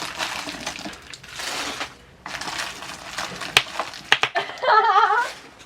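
Spilled hard candies being gathered up: rustling and scraping, then several sharp clicks as pieces knock together. Near the end comes a short wavering, pitched sound.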